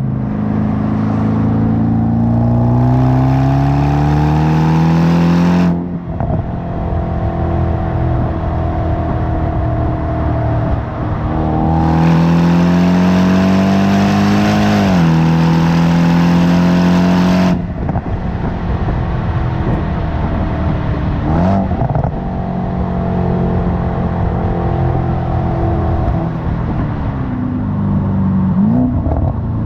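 Jaguar XFR's supercharged V8 through Spires stage 2 rear silencers, accelerating hard twice with the pitch rising steadily, each pull cut off suddenly on lift-off. Between the pulls the engine settles to a lower steady note on the overrun, with scattered crackles from the exhaust.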